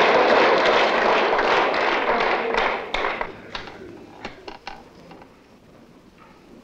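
Audience applause dying away: dense clapping for about three seconds thins to a few scattered claps, then fades out.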